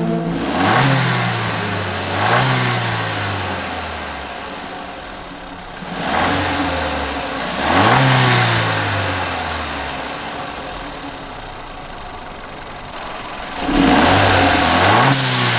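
VW Golf Mk6 1.4 TSI turbocharged four-cylinder engine revving, its pitch climbing and falling back about five times, with a burst of hiss near each peak. This is the stock setup before a blow-off valve is fitted.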